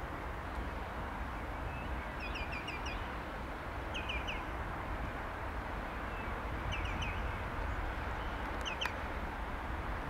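A bird calls in quick runs of four or five short, high notes, four times, over a steady low rumble. A single sharp click comes near the end.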